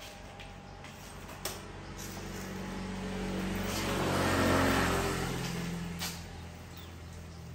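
A motor vehicle passing close by, its engine and road noise swelling to a peak about halfway through and then fading, over a low steady engine hum.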